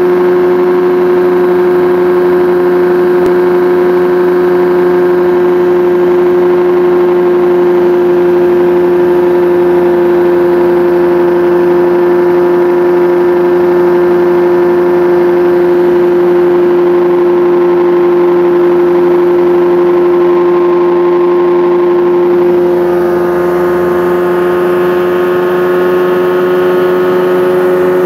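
Ultralight aircraft's engine and propeller running steadily at cruise, heard from inside the cockpit as one constant droning tone with overtones. About 22 seconds in the level dips slightly and the upper tones shift, as with a small throttle change.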